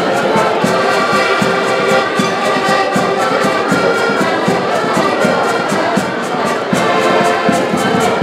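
Several accordions playing a tune together in sustained, full chords over a steady, regular beat.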